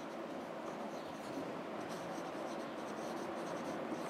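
Marker pen writing on a whiteboard: the felt tip rubbing steadily and faintly across the board as a word is written.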